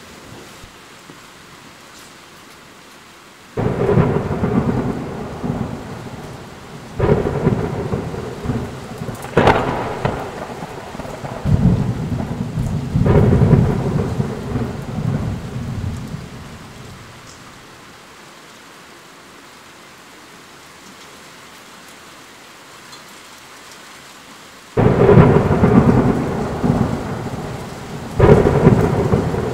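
Thunderstorm: steady rain with repeated thunderclaps and rumbles that begin abruptly. A run of several claps comes about 4 to 16 seconds in, then only the rain for a while, then two more claps near the end.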